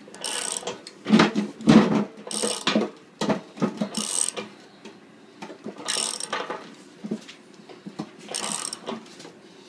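Box wrench cranking a nut down a draw bolt that pulls a pipe coupling through a stainless steel keg wall to form a dimple: five short metallic strokes about two seconds apart as the nut turns under load, with a couple of louder knocks about a second in.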